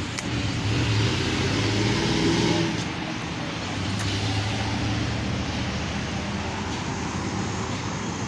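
Road traffic: cars going by on a street, a steady rush of engine and tyre noise that swells over the first few seconds and eases off about three seconds in.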